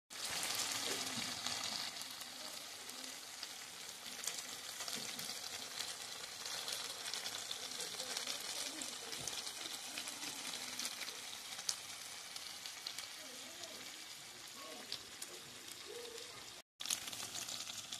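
Chicken gizzards and livers in a thick masala sizzling in oil in a kadai: a steady crackle with many small pops. It cuts out briefly near the end.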